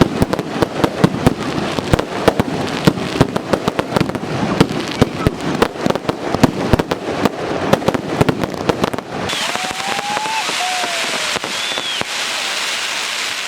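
Firecrackers and fireworks popping in a rapid, dense string of sharp cracks, until about nine seconds in the sound changes abruptly to a steady hiss with a few short whistling tones.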